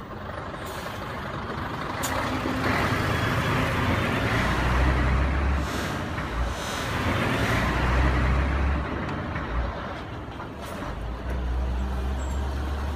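Heavy-vehicle engine noise: a deep hum under a rushing hiss, swelling and fading several times.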